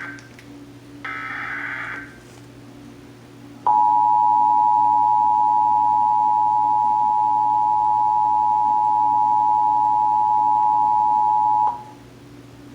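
Emergency Alert System test tones: a one-second burst of the SAME header's digital data screech about a second in, then the EAS two-tone attention signal (853 and 960 Hz sounded together), a loud, steady, shrill dual tone that starts suddenly and holds for about eight seconds before cutting off abruptly near the end.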